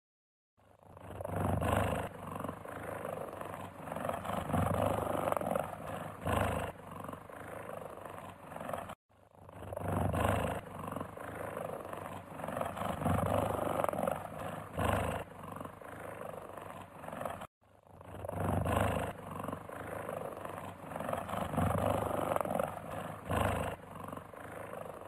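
Cheetah purring in a low rumble that swells and fades. The same stretch of about eight seconds plays three times, with brief breaks between.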